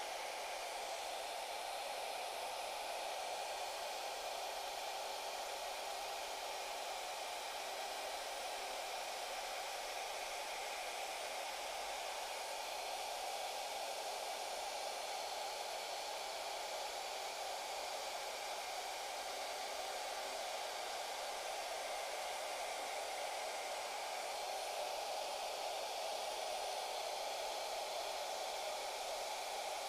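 Shaper Origin handheld CNC router running with its dust extraction: a steady rushing hiss with no clear pitch, holding the same level throughout while the router works through a cut pass.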